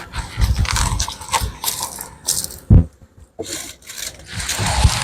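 Beehive parts being handled: irregular wooden knocks, scrapes and rattles, with one sharp knock a little under three seconds in.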